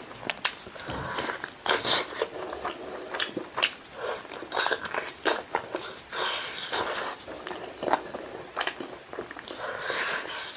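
Close-up eating sounds: a man biting and chewing meat off a spicy, saucy chicken leg, with many short, irregular mouth clicks and smacks.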